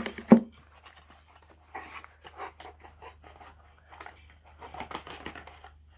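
A single sharp knock about a third of a second in, like a metal lock set down on a table, then scattered rustling and handling noises as locks and their packaging are moved about.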